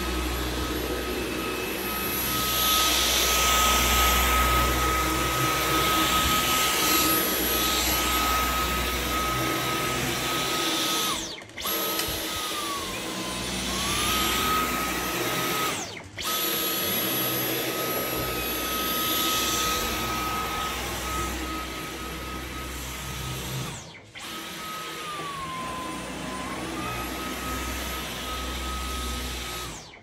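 Dyson Outsize cordless stick vacuum running on carpet: a steady high motor whine over a hiss of rushing air that swells and fades as the floor head is pushed and pulled. The sound drops out briefly three times, and twice the whine dips in pitch and climbs back.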